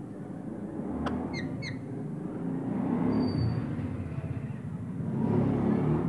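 A rose-ringed parakeet gives two quick short chirps about a second and a half in, then a brief thin whistle about three seconds in, over a low rumble that swells and fades twice.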